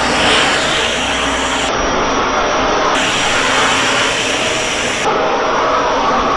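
Hoover WindTunnel Air SH40070 canister vacuum with its 12-amp motor running steadily while vacuuming a thick rug, a loud rushing of air with a thin high whine. The hiss brightens and dulls in turn every couple of seconds.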